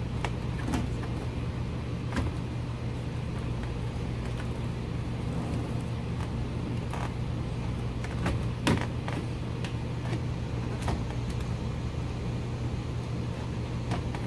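Scattered light clicks and knocks of a wooden dashboard gauge panel and its gauges being handled and pressed into place, the strongest about two-thirds of the way through, over a steady low hum.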